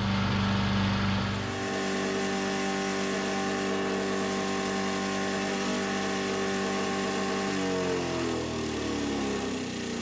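Single-cylinder 212cc Predator engine of a 6.5 HP wood chipper-shredder running steadily at speed. From about eight seconds in its pitch falls as the engine slows down.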